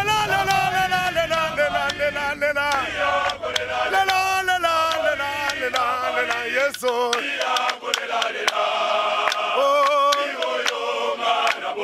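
Background music: a choir of voices singing, men's voices among them.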